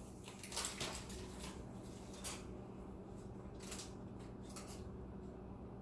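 A few faint, short scrapes and rustles of butter being spread onto dinner rolls with a utensil, over a faint steady hum.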